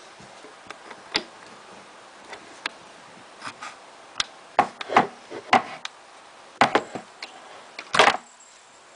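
Irregular clicks, taps and knocks of small hard parts being handled as the bolt is worked out of a Smart Parts Vibe paintball marker, with a louder cluster of knocks about eight seconds in.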